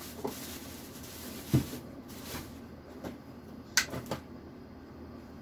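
A few separate knocks and clunks of things being handled in a refrigerator's upper freezer compartment, the loudest a dull clunk about a second and a half in and a sharper knock near the end. A soft hiss runs through the first two seconds.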